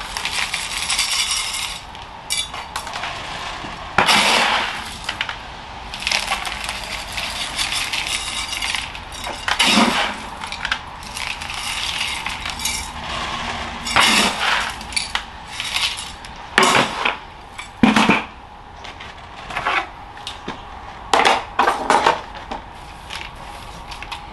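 Coarse granular bonsai soil mix being scooped and poured into a bonsai pot: a gritty rattle of granules in a series of pours, with several sharp knocks between them.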